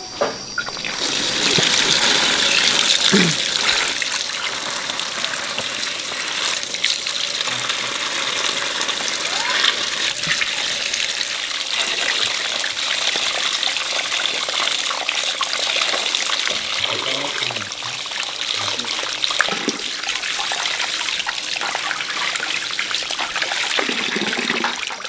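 Water running from an outdoor tap onto green onions in a plastic basket and splashing into a plastic basin below as they are rinsed by hand. The flow starts about a second in and stops near the end.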